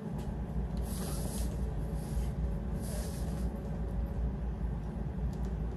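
Nylon tent fabric rustling and swishing in a few soft bursts as the pop-up tent is handled and moved, over a steady low rumble.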